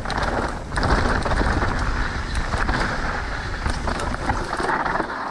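Wind rushing over the camera microphone, with the mountain bike's tyres and frame rattling over the dirt trail as it rides the drop. A brief dip under a second in, then louder from about a second on.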